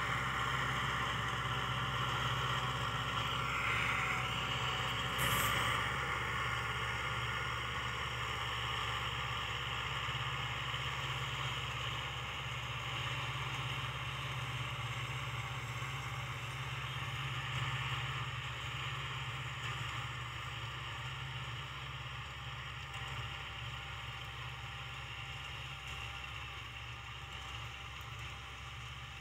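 Kubota L5018SP tractor's diesel engine running steadily under load as it drives a rotary tiller through grassy field soil in first gear. It fades slowly as the tractor moves away.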